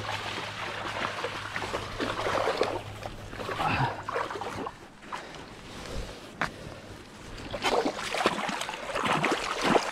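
Footsteps crunching through dry grass and fallen leaves, then a salmon thrashing and splashing in shallow water near the end as it is let go.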